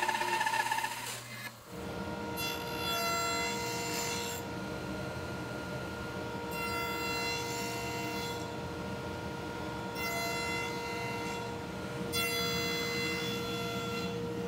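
A bandsaw cutting dovetail tails stops about a second and a half in. A table saw with its blade tilted then runs steadily, with a cut through the wood every few seconds as the tail board is passed over the blade to clear the waste between the dovetails.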